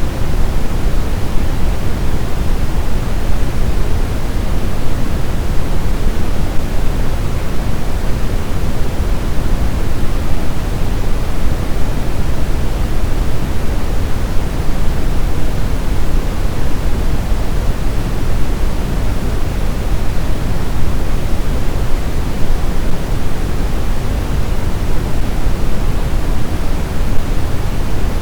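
Steady, unchanging pink noise, deep and rushing with most of its weight in the low end, played as a sleep sound for babies.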